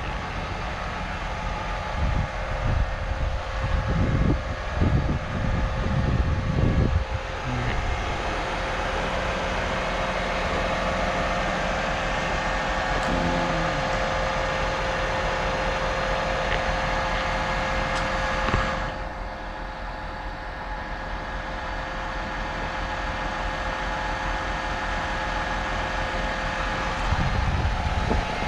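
A crane truck's engine running steadily, with a steady whine over it. About two-thirds of the way through, the higher-pitched part of the sound drops away and the engine goes on running lower.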